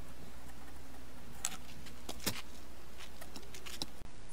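A few light clicks and taps from a 3D-printed PLA planter being handled on a wooden plank, over a steady low hum.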